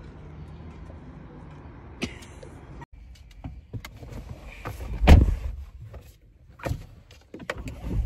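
Low steady hum that cuts off abruptly, then scattered clicks and knocks of handling inside a parked car, with one loud heavy thump about five seconds in and a smaller one shortly after.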